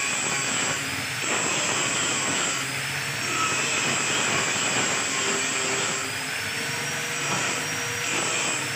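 Machinery running steadily with a thin high whine, its level shifting slightly every second or so.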